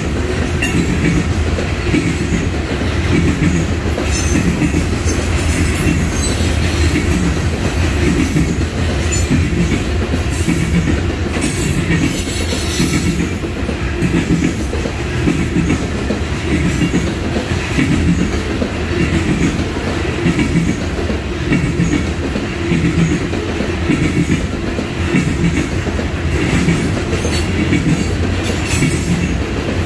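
A grain train's covered hopper cars rolling past, steel wheels clicking over the rail joints in a steady repeating rhythm under continuous rumbling rail noise.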